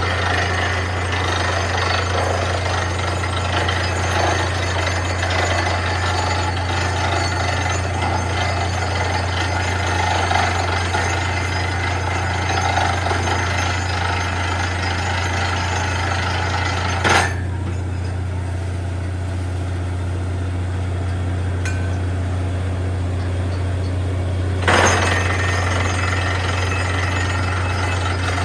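Borewell drilling rig running: a steady low engine drone under a harsh, dense rattle of percussive drilling. About two-thirds of the way through, the rattle suddenly drops away for several seconds, leaving mostly the drone, then comes back just as suddenly, each change marked by a sharp click.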